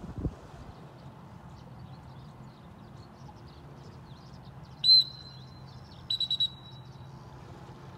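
Dog-training whistle blown by the handler of a Labrador working a water blind: one sharp, loud blast about five seconds in, then four quick toots at the same pitch a second later. A brief low thump comes at the very start, over a steady low rumble of wind and water.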